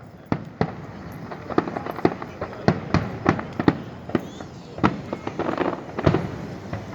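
Fireworks display: an irregular run of bangs and cracks from bursting shells, about two to three reports a second.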